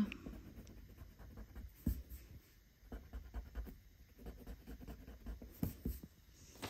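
Pencil on drawing paper: short, irregular scratching strokes of hatching or shading.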